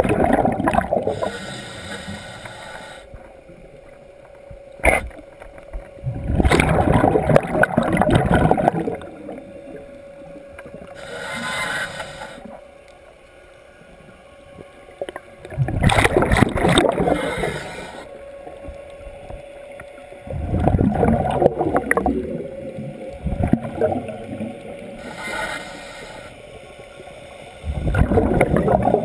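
Scuba diver breathing through a regulator. Exhaled air bubbles out in five loud gurgling bursts a few seconds apart, with softer hissing inhalations between.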